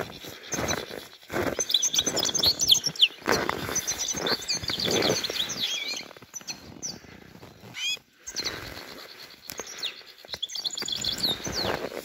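Small finches twittering in many quick high chirps, over the crunch of footsteps in deep snow for the first half or so, then softer rustling as birds are worked in a mist net.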